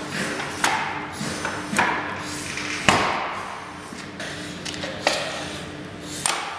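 Wooden pallet boards knocking into a steel assembly jig: a series of sharp wooden knocks about a second apart, the loudest about three seconds in, over a steady low hum.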